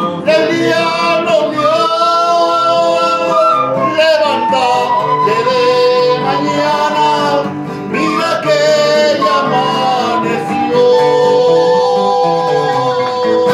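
A quena (Andean end-blown wooden flute) playing a melody of long held notes over a strummed acoustic guitar.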